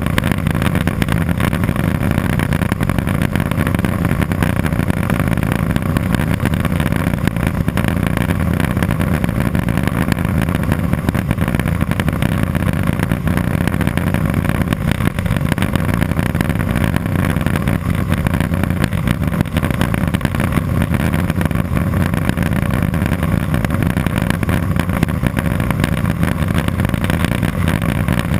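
Cessna 206 Soloy's turbine engine and propeller running steadily, a loud unbroken drone heard from inside the aircraft.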